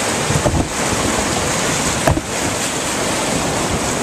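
River whitewater rapids rushing loudly and steadily right beside a raft running through them, with a couple of short knocks about half a second and two seconds in.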